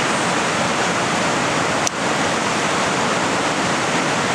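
Steady rush of a river flowing close by, with a brief click about two seconds in.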